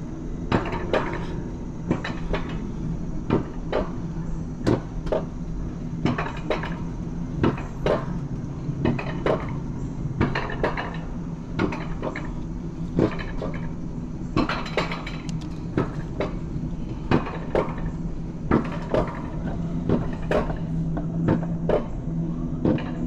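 Alpine coaster sled being hauled up the lift section on its steel rails: a steady low mechanical hum with irregular clacks and rattles from the sled and track.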